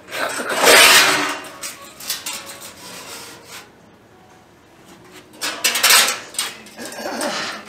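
Sheet-steel headboard panel from a 1954 Fargo half-ton pickup box being handled on a concrete floor: metal scraping and clattering. There is a loud burst about half a second in as it is lifted and stood on edge, and two more near the end.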